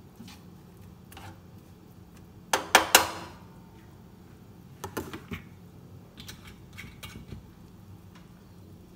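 Plastic slotted spatula stirring chopped poblano chile, onion and garlic in a nonstick frying pan: a quick cluster of louder knocks against the pan about two and a half seconds in, then lighter clicks and scrapes later, over a faint steady hum.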